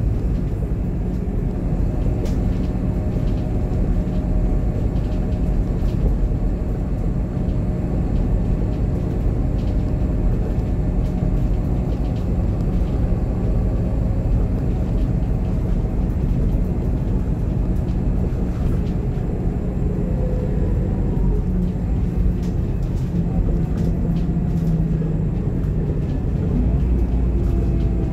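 Scania K280IB coach under way, heard from inside the passenger cabin: the Scania DC9 inline five-cylinder diesel engine gives a steady low drone over road rumble.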